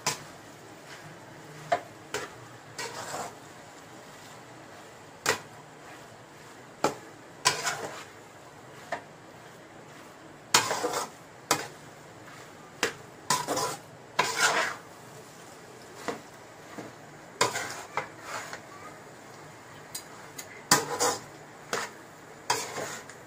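Metal spatula scraping and knocking against a metal kadai while tossing boiled noodles into egg masala: irregular clanks and short scrapes, with a few longer scrapes near the middle.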